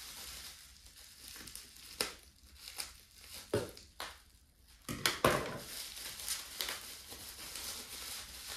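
Bubble wrap crinkling and crackling as it is cut with scissors and pulled open by hand, with a few sharper snaps and a louder burst of crackling about five seconds in.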